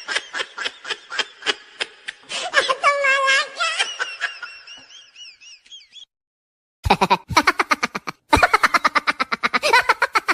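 Laughing sound effects played one after another: a run of rapid rhythmic laughter that trails off into high, wavering squeaky giggles, then after a short gap about 7 seconds in, another burst of fast, rhythmic laughter.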